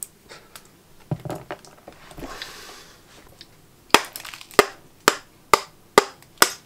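A hot circuit board knocked repeatedly against the work mat to shake off components whose solder has melted. A few light clicks first, then from about four seconds in sharp, even knocks about two a second.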